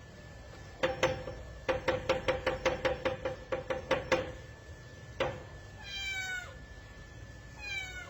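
A cat knocking on a closed door with its paw: a fast run of raps, about four a second for three seconds, then a single rap. It then meows twice, each meow short and falling in pitch.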